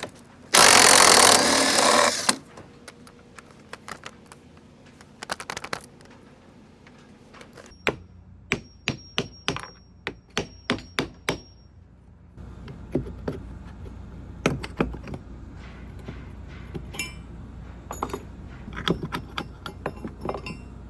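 Hand-tool demolition of rotten timber in a wooden boat's stern. A brief, loud burst of a power tool comes first. Then about a dozen sharp strikes, each with a high metallic ring like a hammer on a chisel, come in quick succession. Later there are scattered knocks and clicks over a steady low hum.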